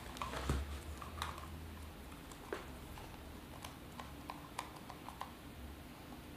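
Faint handling noise of a soft tape measure held and adjusted against a belly: scattered small clicks and rustles over a low room hum.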